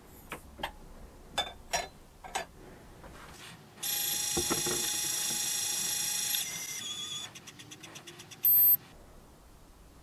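Lyman Gen6 powder dispenser throwing a charge: a few clicks as the pan goes onto the scale, then its motor runs steadily for a few seconds, drops to quick short pulses as it trickles up to weight, and a short high beep signals that the 30-grain charge is complete.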